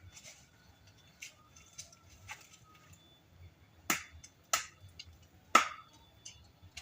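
A series of sharp clicks or snaps. A few soft ones come in the first half and three louder ones follow, about every half second to a second, over a faint steady high tone.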